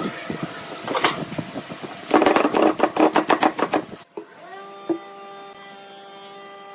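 Wood lathe turning a bamboo-and-epoxy blank: scattered clicks, then a couple of seconds of rapid, evenly spaced clicking and scraping from the tool on the spinning work. After a sudden break about four seconds in, the lathe's motor hums steadily, its pitch rising briefly before it settles.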